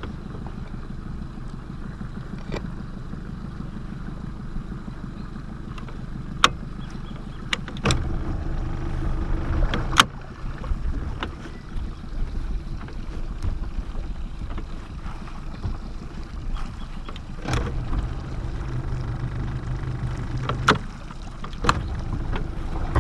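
A small boat sitting on the water: a low steady rumble with a motor hum that comes on twice for a few seconds, and a few sharp clicks or knocks.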